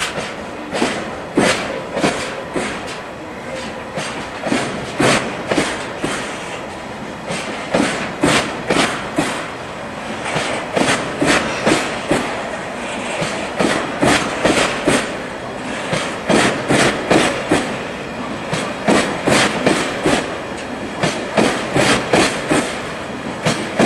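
Empty Taki 1000 oil tank wagons of a departing freight train rolling past slowly, their wheels clacking over the rail joints in repeated groups of clicks about every second or two.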